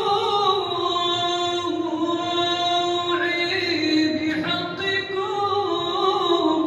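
Solo male voice singing a mawwal into a microphone over a PA: one long unbroken melismatic line, holding notes and bending slowly in pitch without pausing for words.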